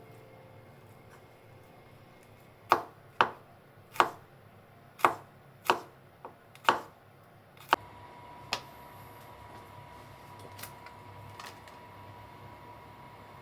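Kitchen knife chopping on a cutting board: about eight separate, uneven strokes, then stopping. A faint steady high tone begins near the end of the chopping.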